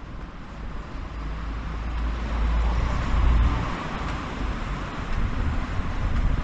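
Road vehicle noise: a steady rumble and hiss that swells to its loudest about three seconds in, as of a vehicle passing close by.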